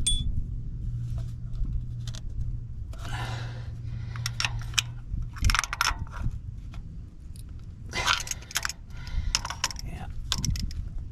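Metal hand tools clinking and rattling against bolts and brackets, with scattered sharp clicks and a few short scraping bursts, as bolts are worked loose on an engine's oil filter housing.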